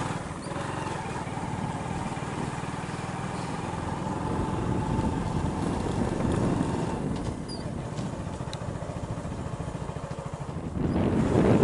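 A vehicle engine runs steadily while driving along a road, growing louder near the end.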